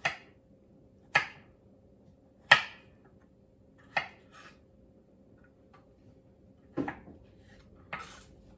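Kitchen knife slicing gai lan (Chinese broccoli) stems on a wooden cutting board: about six sharp knocks of the blade on the board, a second or more apart, with a gap of almost three seconds midway.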